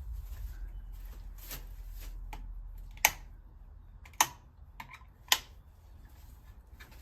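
Three sharp clicks about a second apart, with a few fainter ticks between, after a low rumble in the first few seconds.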